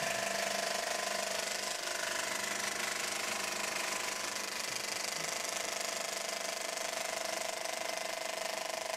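35mm cinema film projector running, a steady fast mechanical rattle over a hum.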